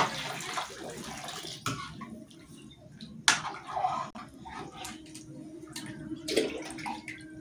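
Water poured from a metal lota into a steel kadhai of pea nimona, splashing for about the first second and a half after a sharp clink. Then a metal ladle stirs and knocks against the pan twice.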